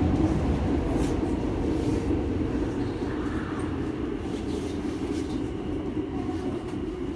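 Osaka Metro Midosuji Line subway car running in the tunnel, heard from inside the car: a steady low rumble of wheels on rail with a few faint clicks, easing a little in loudness as the train nears the next station.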